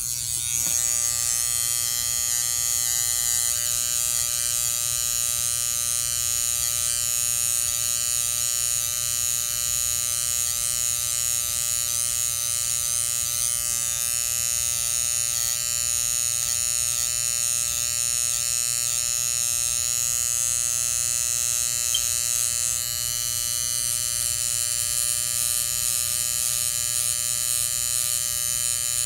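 Electric hair trimmer running with a steady buzz as it cuts hair at the temple and sideburn.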